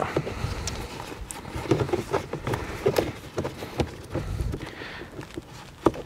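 A gearshift gaiter being handled and pushed down over the gear knob and lever: irregular rustling, rubbing and small knocks, with one sharper click near the end.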